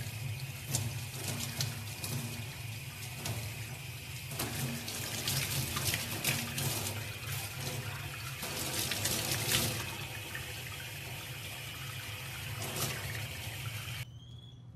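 Tap water running and splashing in a sink while a soapy baby chimpanzee is bathed, with irregular splashes throughout; it cuts off abruptly near the end.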